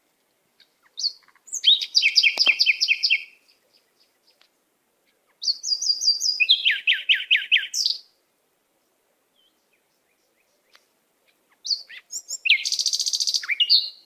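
A songbird singing three rapid trilled phrases of repeated high notes, each about two seconds long, with short pauses between them.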